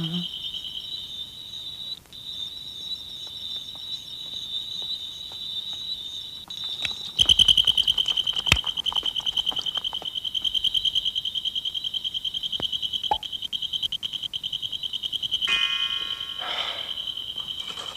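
A steady, high, rapidly pulsing trill like crickets chirping, part of a cartoon soundtrack. About seven seconds in a soft thump comes and the trill grows louder, with a sharp click a second later.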